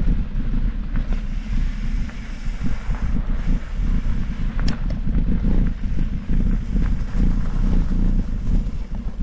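Mountain bike riding a downhill trail: wind buffeting the camera microphone over a steady low rumble and rattle from the bike and tyres on the dirt, with one sharp click about halfway through.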